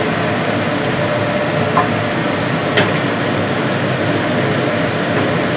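Wooden spatula stirring chunks of meat in a steel wok, with a couple of light knocks against the pan over a steady rushing noise.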